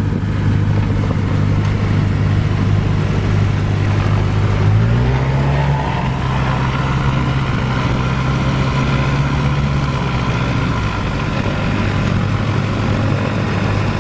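Cessna 172's piston engine running at low power, its steady note stepping up a little about five seconds in, holding for about six seconds, then dropping back.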